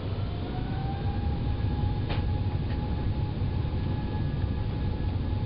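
Airbus A380 cabin during the takeoff roll: a steady low rumble with an engine whine that rises in pitch at the start, then holds steady as the engines reach takeoff power. Two sharp knocks about two seconds in.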